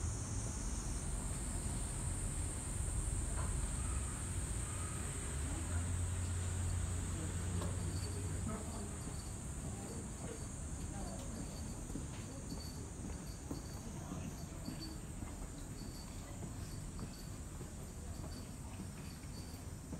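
Cicadas droning in the summer trees: a steady, high-pitched buzz, over a low rumble.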